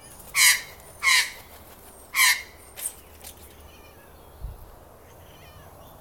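A magpie giving three loud, harsh calls in quick succession, then two fainter ones. A short low thump follows a couple of seconds later.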